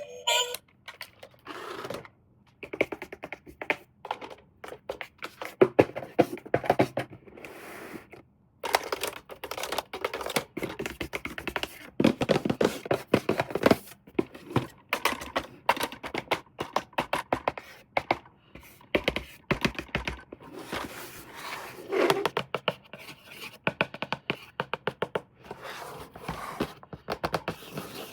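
Hands handling a plastic toy and its packaging: rapid, irregular clicks, taps and scratchy rustles with short pauses.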